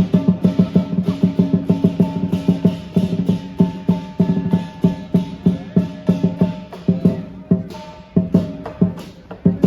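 Lion dance percussion: a big drum beaten in a fast, steady rhythm with clashing cymbals and a ringing gong. The beat thins out briefly about two-thirds of the way through, then picks up again.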